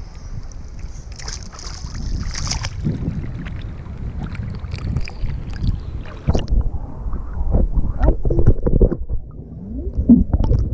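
Water sloshing and splashing around a GoPro camera at the water surface. About six seconds in the sound turns muffled and low as the camera dips under the water.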